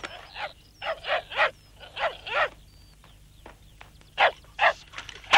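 German shepherd dog barking: a run of short barks, a lull of about a second and a half, then two more barks.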